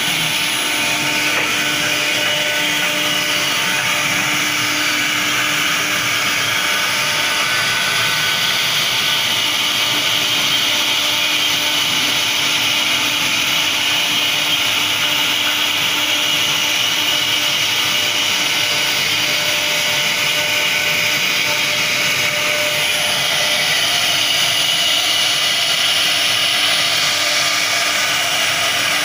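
CNC router spindle carving a wooden door panel: a steady high spindle whine mixed with the hiss of the bit cutting into the wood.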